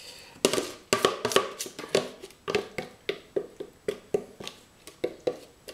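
A spatula knocking and scraping against the inside of a plastic tub as batter is scraped out of it, in a quick run of sharp knocks, about three a second.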